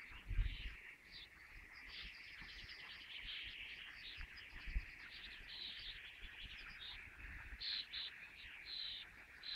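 A noisy chorus of many birds calling and chirping at once, a dense, unbroken chatter. Two brief low thumps come through, about half a second in and again about halfway.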